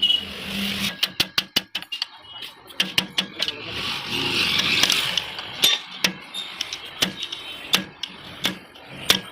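Sharp metallic clinks and knocks of tools and parts being handled: a quick run of them about a second in, then scattered single ones, with a short scraping hiss around the middle.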